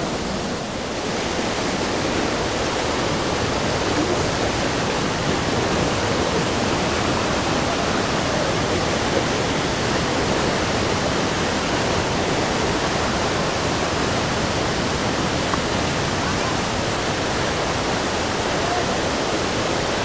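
Waterfall: a steady, even rush of falling water that keeps up without a break.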